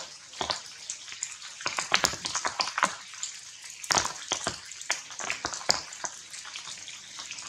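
Irregular patter of rain drops falling and dripping onto leaves, a scatter of sharp ticks over a light hiss, with a few louder taps about two and four seconds in.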